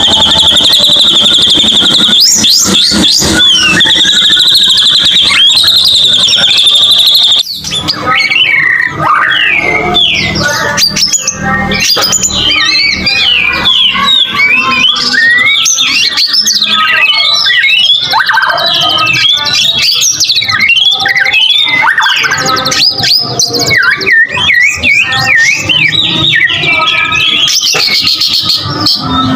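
Recorded white-rumped shama song played as a lure track. It opens with a long, high, slightly wavering whistled note lasting about seven seconds, then turns into a fast, varied run of sweeping whistled phrases.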